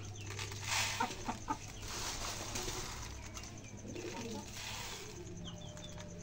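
Pearl millet grains dropped by hand into a plastic feed tray, a soft patter of small clicks, with pigeons cooing in the background and a few short high bird chirps near the end.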